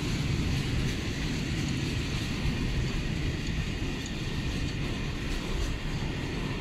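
State Railway of Thailand train running on the rails, a steady low rumble.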